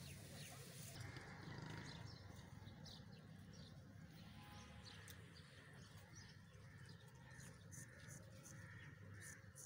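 Near silence: faint outdoor ambience with a few faint, short high ticks.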